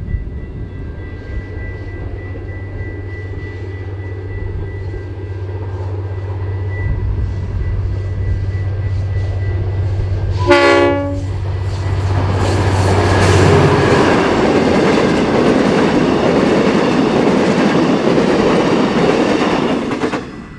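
V/Line N class diesel-electric locomotive approaching under power up a 1 in 50 grade, its engine a steady low drone. It sounds one short horn blast about halfway through, then the locomotive and its passenger carriages pass close by with loud wheel and rail noise and clickety-clack. The sound cuts off suddenly at the very end.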